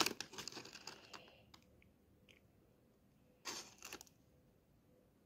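Soft crackling and rustling as a hand lifts a piece of crispy fried chicken out of a bucket lined with paper. A cluster of small crackles in the first second or so, then another short burst about three and a half seconds in.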